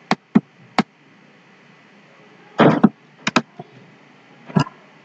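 Computer keyboard and mouse clicks: about eight short, sharp clicks in small groups as lines of code are selected and copied, with one louder, longer clatter a little past halfway.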